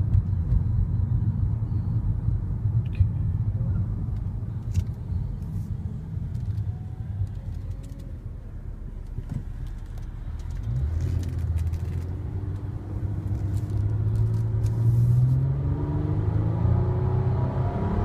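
2013 Nissan Maxima's 3.5-litre V6 and road rumble heard from inside the cabin while driving. About ten seconds in, the engine note starts to climb steadily as the car accelerates, and it stays up to the end.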